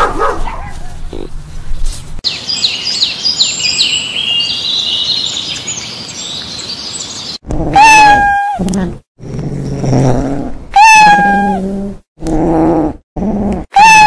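A cat meowing: three loud, long meows that rise and then hold, with shorter, lower-pitched calls in between. Before them come several seconds of high, quick twittering chirps.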